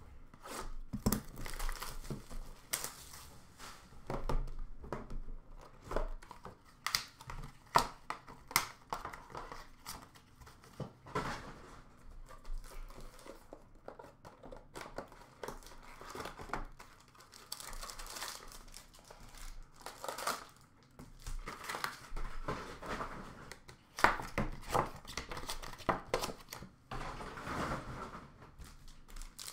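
Packaging of a sealed Panini Black Gold trading-card box being torn open and handled: irregular crinkling, rustling and tearing, with scattered sharp clicks as the box lid is lifted and the card packs are taken out.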